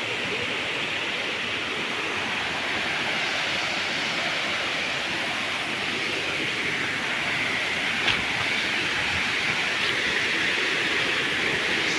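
Waterfall pouring, a steady rush of falling water, with a single brief click about eight seconds in.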